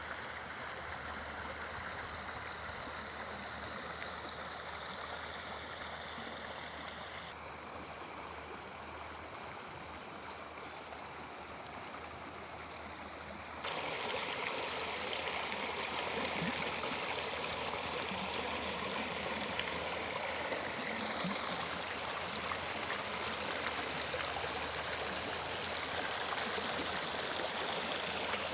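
Flowing stream water rushing and gurgling steadily, stepping abruptly louder about halfway through.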